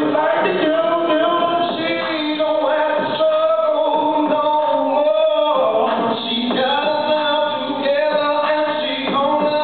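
Male vocal group singing into microphones, with long held notes.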